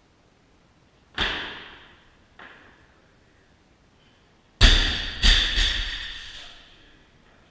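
Loaded barbell jerked overhead: a sharp thud as the lifter's feet land on the platform about a second in, and a lighter knock a little later. Then the bar is dropped from overhead: the bumper plates hit the platform hard, bounce twice, and ring as they settle.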